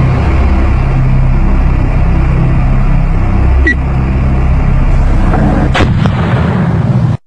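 Loud, continuous cartoon rumble of blasts like heavy gunfire or artillery, with a short sharp click partway through and another a little before the end. It stops abruptly just before the end.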